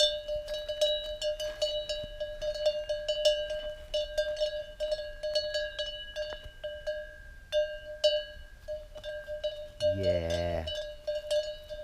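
A metal cowbell on a grazing bull's neck clanks irregularly as the animal moves its head and walks. About ten seconds in, the cattle give a short, low moo.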